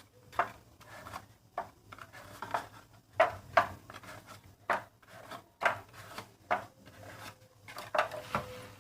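Kitchen clatter: irregular light knocks and clinks of bakeware and utensils being handled, a sharp one every second or so.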